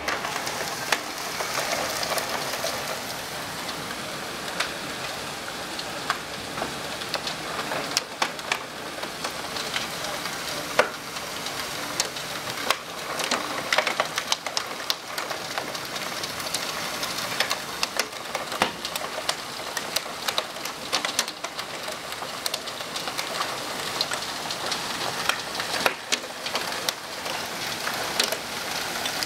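Heavy rain mixed with small hail: a steady hiss of rain with frequent, irregular sharp ticks of hailstones striking.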